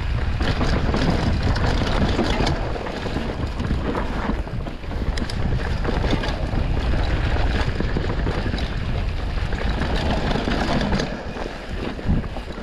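Mountain bike rolling fast down a dirt forest trail: wind buffeting the handlebar camera's microphone over the tyres on dirt, with frequent knocks and rattles of the bike over roots and bumps. It gets a little quieter near the end.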